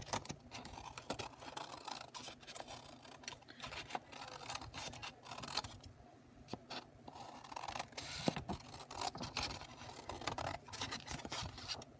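Scissors cutting out painted paper strips: a run of irregular snips with paper rustling, with a short lull about six seconds in.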